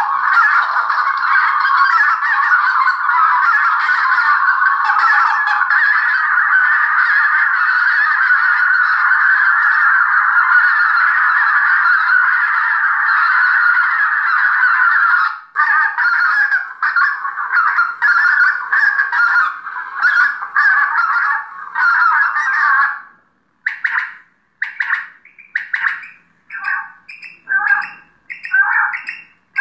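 Recorded calls of a flock of geese played back loudly through an electronic game caller's horn loudspeakers. A dense, continuous chorus of honking breaks up after about fifteen seconds into separate honks. In the last few seconds come single short calls with short silences between them, about one a second.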